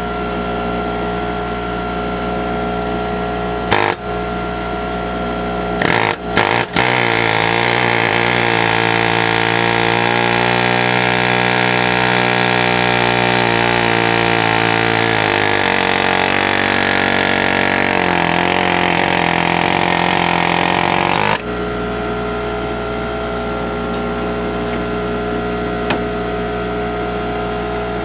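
Loud power tool runs for about fifteen seconds, its pitch sagging and recovering as it works against a heavily rusted-on part, then it cuts off sharply. Under it is a steady mechanical hum, with a few sharp clicks just before the tool starts.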